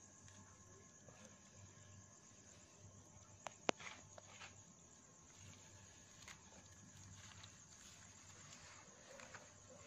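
Faint, steady high chirring of crickets, with light rustling of hands searching through grass. Two sharp clicks about three and a half seconds in are the loudest sounds.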